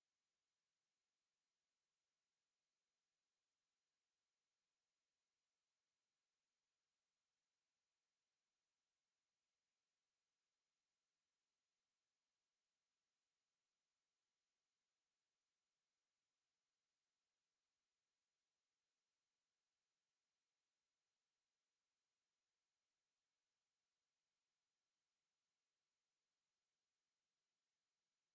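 A steady, high-pitched pure sine tone at 10346 Hz, one unchanging whistle-like pitch: a speaker test tone, also played to shake water and dust out of a speaker.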